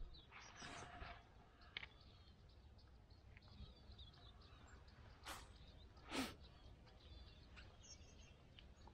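Near silence outdoors with faint bird chirps, a breathy exhale near the start, and two short sharp noises about five and six seconds in.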